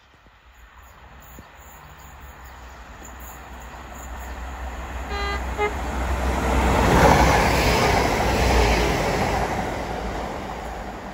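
Transport for Wales Class 197 diesel multiple unit approaching and passing. It gives two short horn toots about five seconds in, the second shorter. Its diesel engine rumble and wheel noise build to a peak as it goes by, then fade.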